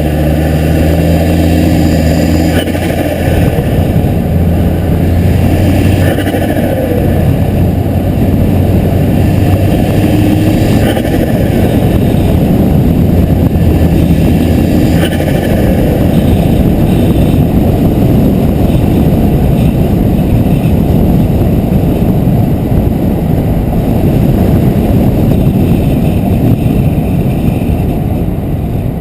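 Volvo S60R's turbocharged five-cylinder engine pulling the car along, with its diverter valve line disconnected. A steady engine hum is clear for the first ten seconds or so, then a loud, even rush of driving noise takes over, broken by a few brief sharp sounds.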